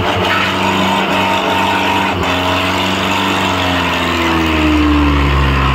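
Mahindra Arjun tractor's diesel engine running flat out under full load, pulling against a second tractor chained behind it in a tug-of-war, its pitch shifting slowly and growing a little louder near the end.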